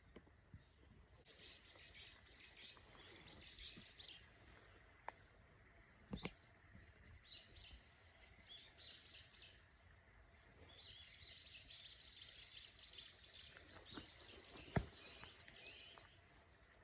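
Small birds chirping faintly in quick runs of short notes, in several bouts. A few sharp clicks stand out, one about a third of the way in and the loudest near the end.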